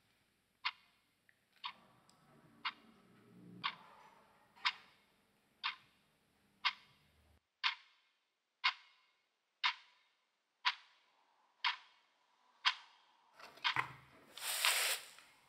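Clock ticking steadily about once a second, with a brief rustle near the end.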